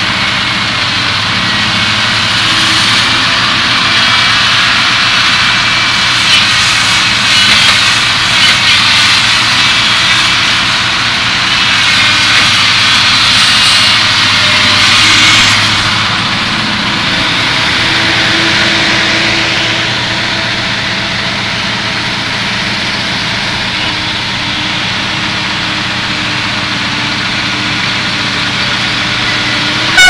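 Heavy diesel logging machinery running under load: a loud, steady engine drone with a dense hiss and whine above it, easing a little about halfway through.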